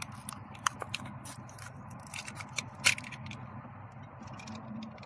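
A knife cutting open the plastic packaging of an oil-additive tube: a string of sharp clicks and crackles that thins out after about three and a half seconds.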